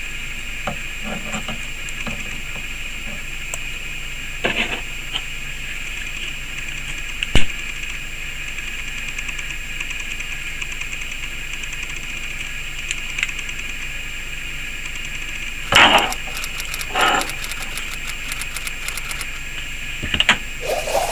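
Steady hiss, with a few scattered clicks and scrapes of small metal parts being handled as a coiled nitinol wire spring is pried off a metal wheel with a hand tool. A single sharp click about seven seconds in is the loudest.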